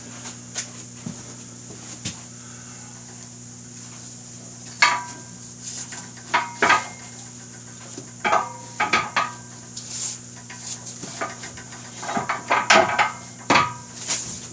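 Metal parts clinking and clanking as a motorcycle front wheel is worked into place: a dozen or so sharp metallic knocks with a short ring, starting about a third of the way in and bunching together near the end, over a steady low hum.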